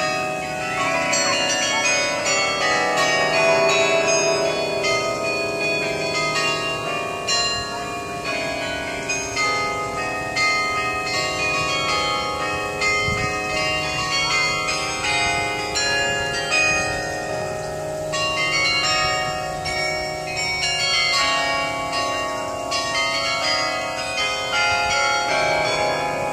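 Carillon bells playing a tune: notes struck one after another, several a second, each ringing on and overlapping the next.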